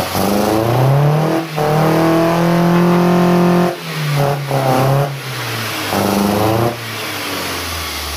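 Ford 1.8 Zetec four-cylinder engine running on a set of motorcycle carburettors, revved by hand at the throttle linkage: it climbs and holds high revs for about two seconds, drops, takes a few quick blips, revs once more, then settles back to idle near the end. The engine is still cold, and it picks up cleanly, sounding pretty sweet.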